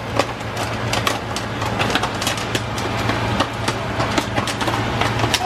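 Popcorn kernels popping inside a foil stovetop popcorn pan: irregular sharp pops, a few a second, over the steady hum of a range-hood vent fan.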